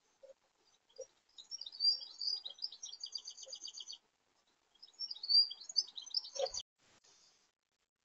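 Small songbird singing two twittering phrases, each running into a rapid trill of repeated high notes. A short dull knock comes near the end of the second phrase.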